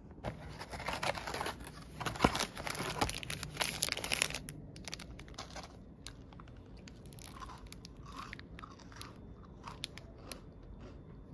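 Foil snack wrapper crinkling and tearing open, then the crunching and chewing of a chocolate-filled sandwich biscuit. The crinkling is loudest and densest in the first four seconds; the later crunches come in short, scattered bursts.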